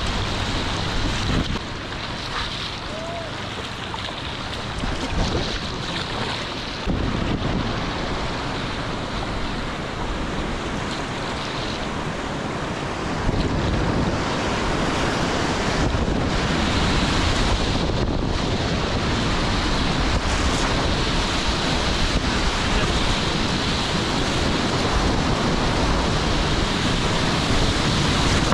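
Rushing whitewater rapids, a steady dense rush of churning water, with wind buffeting the microphone. It gets louder about seven seconds in and again near the middle.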